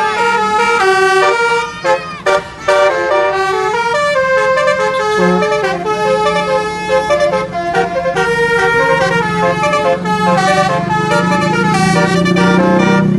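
Basuri telolet bus horn, a multi-trumpet air horn, playing a melody of held notes that step quickly from one pitch to the next. Brief breaks come about two seconds in, and a steady low hum runs underneath.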